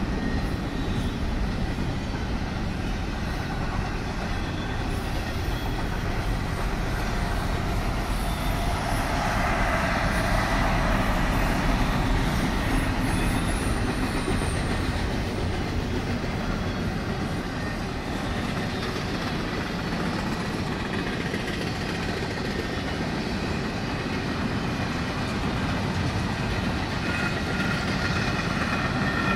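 Double-stack intermodal well cars rolling past, a steady rumble of steel wheels on rail.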